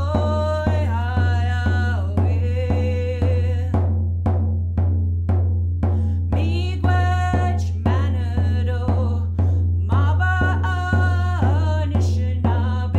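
A woman singing an Ojibwe song with vocables ('way hah yah ho, way hah yah') over a steady hand-drum beat of about two strikes a second. The singing breaks off briefly about four seconds in while the drum keeps going.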